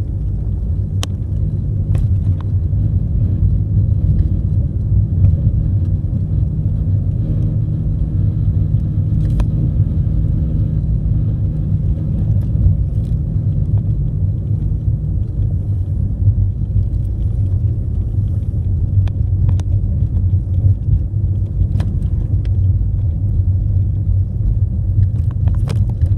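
Car on the move: a steady low rumble of engine and road, with scattered light clicks and ticks.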